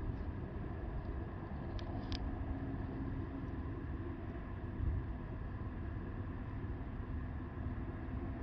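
Wind blowing against the microphone: a steady low rumbling noise, with two faint ticks about two seconds in.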